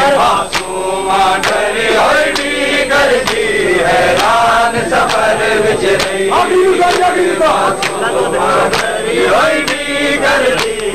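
A group of men chanting a noha, a mourning lament, with sharp slaps at a steady beat, the sound of hands striking chests in matam, keeping time under the voices.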